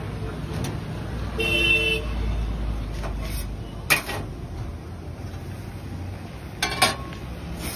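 Steady street traffic rumble with a short vehicle horn honk about a second and a half in. Sharp clacks come near the middle and again near the end.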